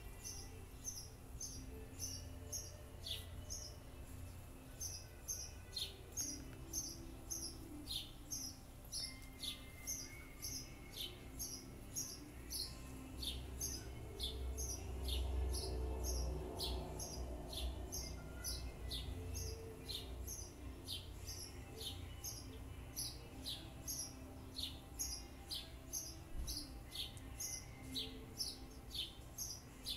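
A bird chirping over and over in a steady, even rhythm, about two short high chirps a second, some of them quick falling notes. Under it there is a low rumble that grows louder around the middle.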